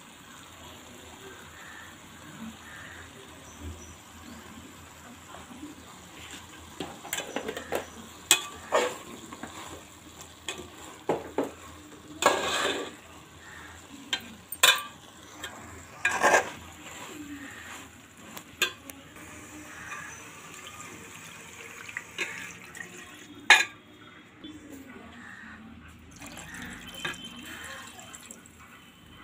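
Metal slotted spoon stirring and scraping masala-coated tripe around an aluminium pot, with scattered clanks against the pot's sides over a low sizzle of the frying. Near the end, water is poured into the pot.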